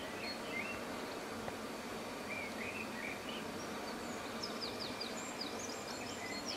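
Small songbirds chirping over a steady outdoor hiss, with scattered short chirps and, from about four seconds in, a quick run of high falling notes that ends in a fast trill.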